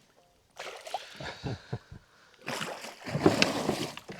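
Water splashing and sloshing with a few sharp knocks as a hooked pike thrashes at the boat; the loudest burst comes in the second half.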